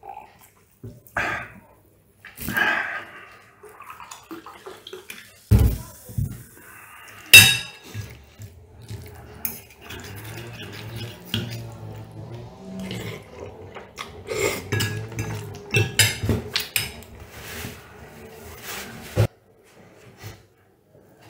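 Metal fork and spoon clinking and scraping against a ceramic plate as spaghetti is twirled, in scattered sharp clicks with the loudest about seven seconds in, and chewing between.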